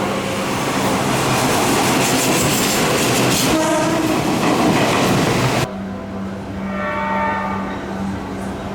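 Seibu Railway commuter train running past at the platform, a loud rush of wheel and running noise. About two-thirds of the way through it cuts off suddenly, and a train horn sounds a chord of several steady tones, quieter.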